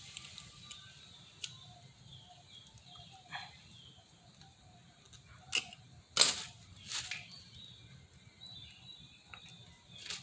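Handling noises from a motorcycle rear brake master cylinder being worked on with circlip pliers: a few light clicks, then two louder knocks about six and seven seconds in.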